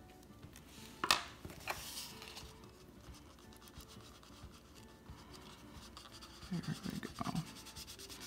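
Faint scratching and rubbing of a burnishing tool over mending tissue on a cardboard box, with a sharp click about a second in and a smaller one soon after.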